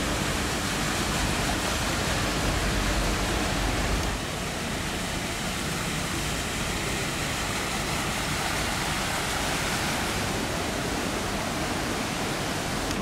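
Steady rushing and splashing of floodwater as vehicles plough through a flooded street, their tyres throwing up spray. A low rumble drops away suddenly about four seconds in, leaving an even wash of water noise.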